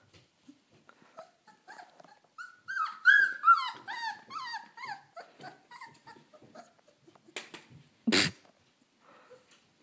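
Three-week-old puppies squabbling: a quick run of high, squeaky yips and whimpers mixed with small growls, loudest about three seconds in and tapering off over the next few seconds. A single brief, loud noise comes just after eight seconds.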